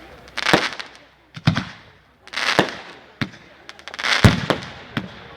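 Fireworks display: aerial shells bursting in a run of about five sharp bangs roughly a second apart, each trailing off in a short fading tail.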